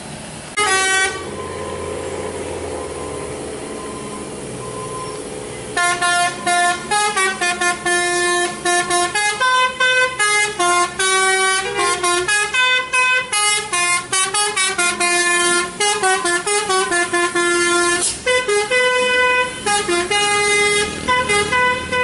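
A short horn blast about half a second in, then steady engine and traffic noise. From about six seconds in, a truck's multi-tone musical air horn (a "telolet" horn) plays a quick tune of short notes that step up and down, going on without a break.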